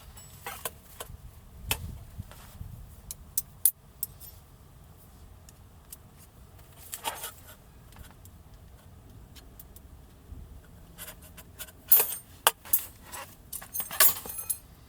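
Scattered sharp clicks and light clinks of small hard objects being handled, more frequent and louder in the last few seconds.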